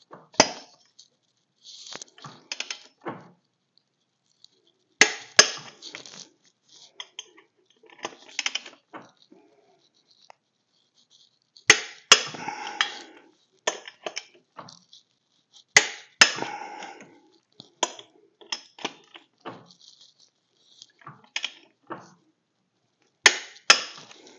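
Click-type torque wrench being worked on wheel lug nuts set to 50 ft-lb: metallic ratchet clatter broken by pairs of sharp clicks, four times, as nuts reach the set torque.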